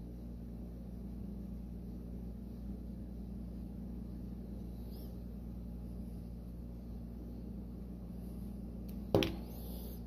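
Steady low electrical hum of a small workshop room, with a faint soft whoosh about five seconds in and one sharp click just after nine seconds.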